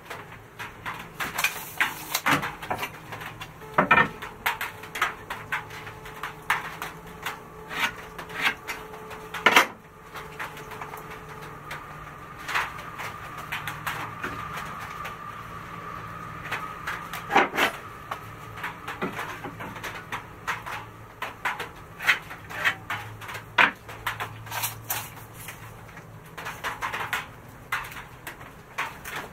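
Irregular clicks and light knocks of hand tools on a wooden slab: a tape measure and pencil being handled while marking out a long plank, with two sharper knocks in the first ten seconds.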